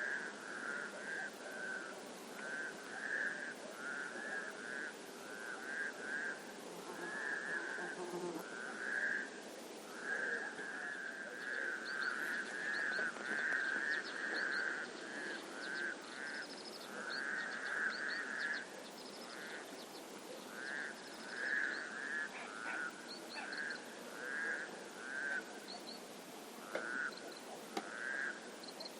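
Frogs calling in a chorus of repeated trilling bursts, one after another with short gaps. From about halfway, short high chirps of small birds join in.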